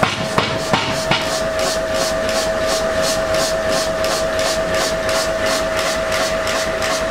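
Blacksmith's hammer striking metal on the anvil, four quick blows about two or three a second, stopping about a second in. Under them and after them runs steady forge-shop machine noise: a constant hum with a faint even pulsing.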